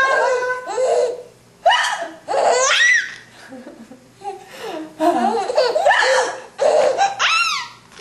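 Baby laughing in several high-pitched bursts, with a lull near the middle.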